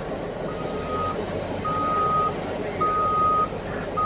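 Back-up alarm on heavy mining equipment beeping a single steady tone, about one beep a second, over the continuous noise of large diesel engines running.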